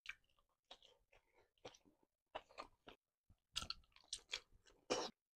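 A person biting and chewing a large piece of cooked squid coated in spicy sambal: a string of irregular bites and chews, loudest about three and a half seconds in and again just before the end.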